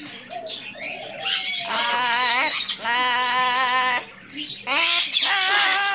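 Pet parrot singing: three drawn-out, wavering phrases, the first beginning about a second and a half in.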